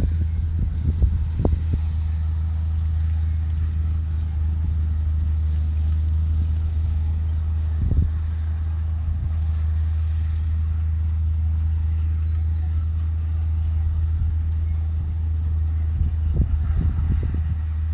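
Heavy diesel engine of earthmoving machinery running at a steady pitch, with a few short clanks near the start, about eight seconds in, and near the end.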